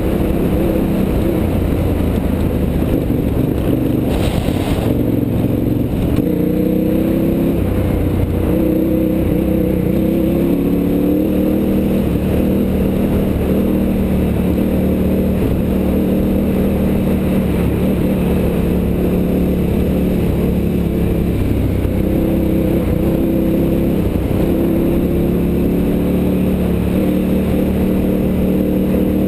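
KTM 990's V-twin engine running under way on a motorcycle ride, heard from the bike itself. Its pitch climbs and shifts several seconds in as the throttle changes, then holds steady. A brief rush of noise comes about four seconds in.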